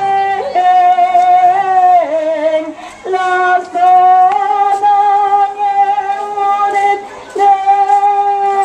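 Slow singing in long held notes by a woman's voice, with short breaks about three seconds in and again about seven seconds in.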